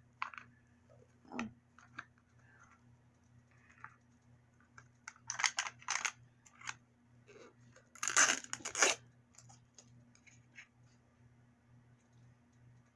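Small plastic packaging crinkling and tearing open in two short bursts, about five seconds in and again about eight seconds in, with a few faint handling clicks between, over a faint steady low hum.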